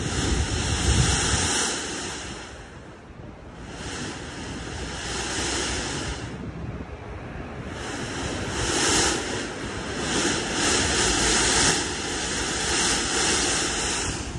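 Hissing spray from a mist jet spurting up out of grates in the pavement, coming in surges that die down briefly twice.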